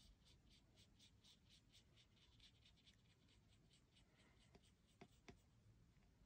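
Faint, quick strokes of a watercolour brush pen's tip on card, about four a second, thinning out to a few soft taps near the end.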